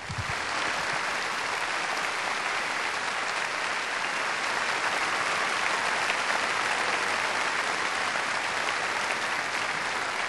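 Large stadium crowd applauding, a steady sustained wash of clapping from thousands of hands.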